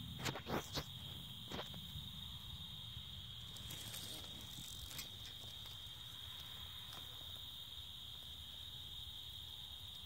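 Steady high-pitched drone of night insects. A few sharp clicks in the first two seconds and a brief rustle about four seconds in.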